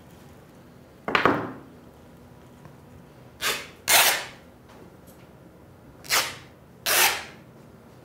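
Something thin being torn by hand, in five short rips.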